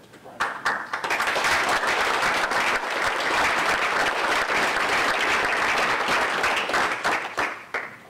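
Audience applauding: many hands clapping together, swelling up within the first second and dying away shortly before the end.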